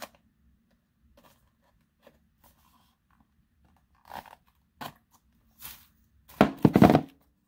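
Small cardboard product box being handled and opened: a few light rustles and scrapes, then a loud, quick run of ripping and crackling near the end.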